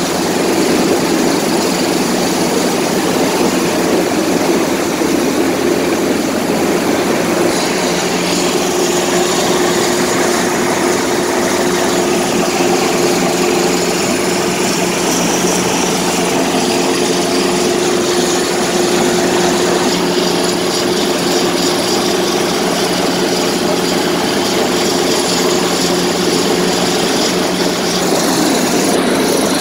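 Helicopter hovering overhead, its rotor and engine running loud and steady with a constant hum.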